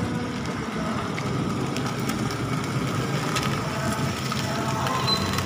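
Children's battery-powered ride-on toy jeep driving over brick paving: its electric motors and gearboxes whirring while the hard plastic wheels rattle and click on the bricks.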